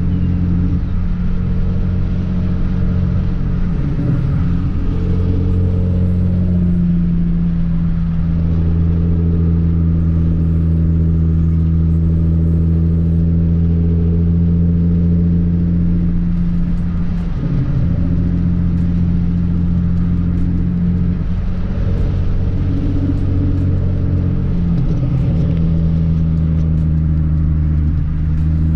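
2013 Hyundai Genesis Coupe's 3.8 L V6 with an ISR race exhaust, heard from inside the cabin while cruising: a steady low drone whose pitch shifts a few times with the throttle.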